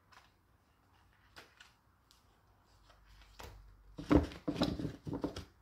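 A deck of tarot cards being shuffled by hand: a few faint taps, then a quick run of card snaps and flicks over the last two seconds or so.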